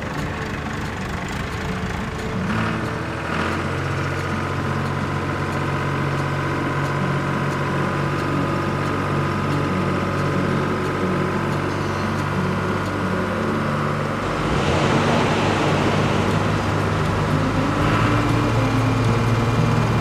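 Tractor engine running with a steady hum; a rush of hiss joins in about fifteen seconds in, and the hum carries on under it.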